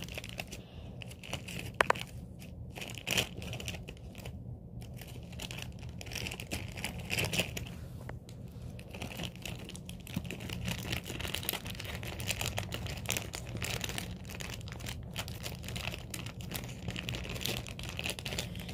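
Plastic bag crinkling and rustling as it is handled, with many small clicks throughout, over a low steady hum.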